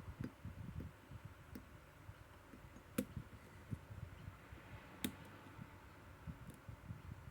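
Small clicks from a Sezam combination lock as its tumblers are turned and set, two sharper clicks about three and five seconds in, with faint handling noise in between.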